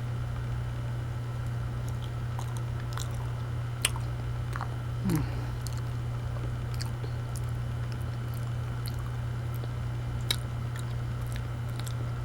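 A person chewing a mouthful of banana: soft, wet mouth clicks and smacks scattered throughout, with a brief murmur about five seconds in, over a steady low hum.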